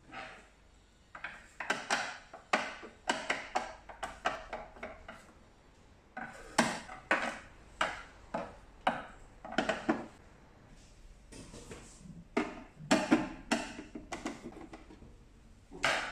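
A screwdriver backing screws out of a hard plastic machine casing, with clicks, scrapes and knocks as the casing is handled and set down on a table. The clicks and knocks come in clusters, with short pauses between them.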